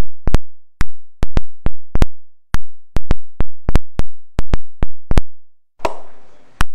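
Ping test on a GM 808 academy-size English-willow cricket bat: a ball bounced repeatedly on the blade, sharp pings about three a second, often in quick pairs. The pinging breaks off near the end with a short rustle, then there is one more strike.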